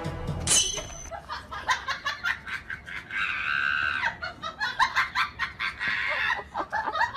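People laughing hard in quick rhythmic bursts, with a high drawn-out squeal about three seconds in.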